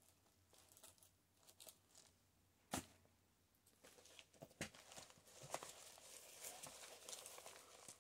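Faint rustling and crinkling of a handmade junk journal's paper pages and tulle ruffles being handled, with a couple of light ticks in the first half and soft steady rustling through the second half.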